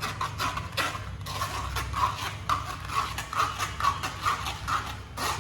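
Ground ginger-and-jaggery pulp being worked through a strainer: a rhythmic scraping, about three strokes a second, with small clicks.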